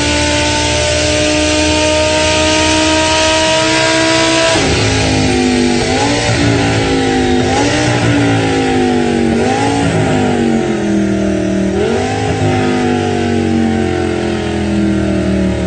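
Formula 1 V10 engine at high revs, its pitch climbing steadily for about four seconds, then dropping sharply. It then rises and falls in pitch several times before sinking slowly near the end.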